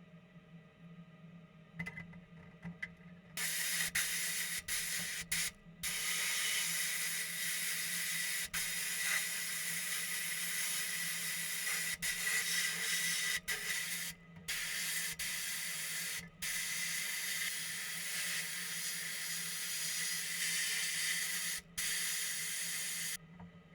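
Compressed air hissing from a handheld air tool, triggered in long bursts with brief breaks where the trigger is let off, starting after a few short puffs and cutting off just before the end. A low steady hum runs underneath.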